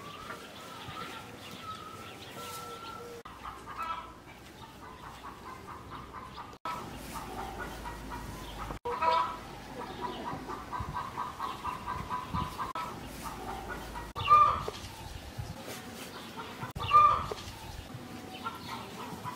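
Chickens clucking in runs of quick repeated calls, with a few louder calls around the middle and near the end.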